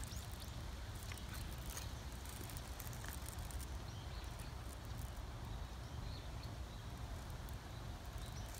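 Quiet outdoor background: a steady low rumble with scattered faint clicks and rustles, mostly in the first few seconds, and a few faint, brief chirps.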